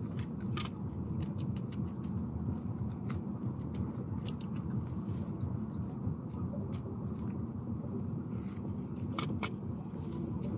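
A steady low rumble throughout, with scattered light clicks and taps of a spoon against bowls while people eat.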